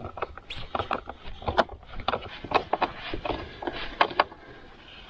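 Irregular clicks and scrapes of a hand tool driving screws down into a plastic air box, easing off near the end.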